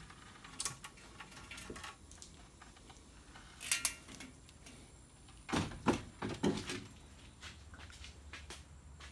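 Scattered knocks and light clatter of things being moved about, with a sharp pair of clicks about four seconds in and a cluster of dull knocks a couple of seconds later.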